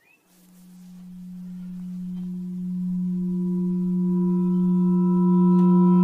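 A low droning tone from a horror sound effect, swelling steadily louder, with higher tones joining in over its second half.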